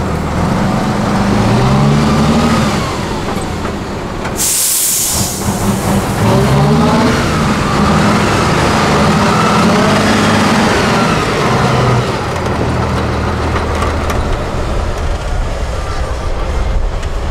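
Heavy 8x8 off-road truck's diesel engine revving up and down repeatedly under load as it crawls over the terrain, then running more steadily near the end. A short, loud hiss of air cuts in about four and a half seconds in.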